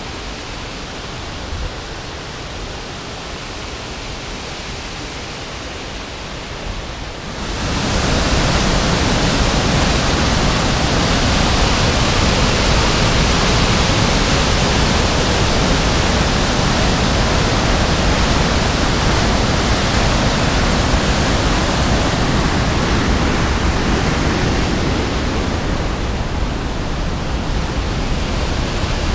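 Steady rushing noise of falling water from a waterfall. About seven seconds in it jumps much louder, to the full rush of a white-water torrent pouring through a narrow rock channel.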